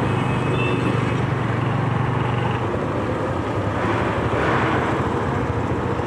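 Motorcycle engine idling with a steady low hum amid street traffic noise, with a louder rush of passing traffic about four seconds in.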